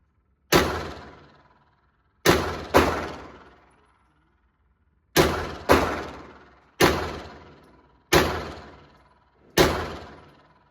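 Eight 9mm pistol shots from a Glock 17L, fired at an uneven pace, twice as quick pairs about half a second apart. Each shot has a ringing tail that dies away over about a second.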